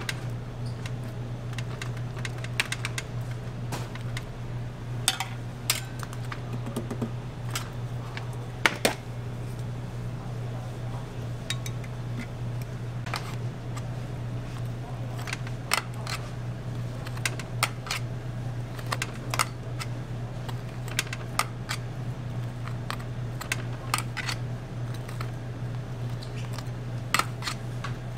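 Scattered light clicks and taps of utensils and equipment at a waffle-making counter, a few of them sharper knocks, over a steady low machine hum.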